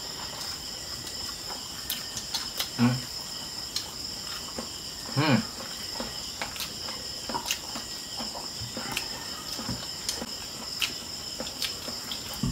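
Crickets chirping steadily, with scattered small clicks and smacks of people eating barbecue with their hands. There is a short low vocal sound about three seconds in and another about five seconds in.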